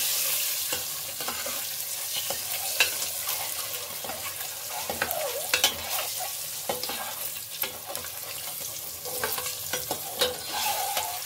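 Slit boiled eggs frying in hot oil with turmeric in a pressure cooker: a steady sizzle, with a spatula stirring them and knocking against the metal pot every second or so.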